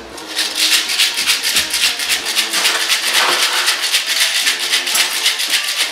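Ice rattling hard inside a metal cocktail shaker tin, shaken in a fast, steady rhythm.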